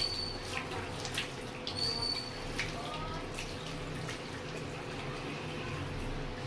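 Water running from a tap into a bathroom sink, with irregular splashes as hands scoop water onto a face to rinse off makeup.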